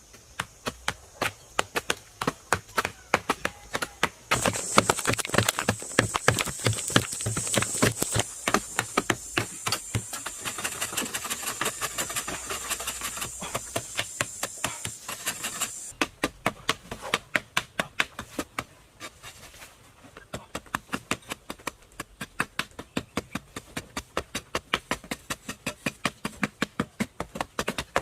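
Sharp knocks or taps repeated steadily, about two to three a second, with a hissing noise over them from about four seconds in until about sixteen seconds in.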